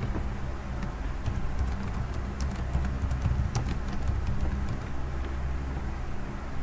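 Computer keyboard keys clicking in scattered keystrokes as a name is typed, over a steady low hum.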